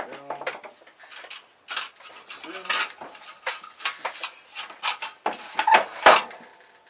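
Metal parts and hand tools clinking and clattering against each other as scrap is pulled apart by hand: an irregular run of knocks and clanks, the loudest about six seconds in.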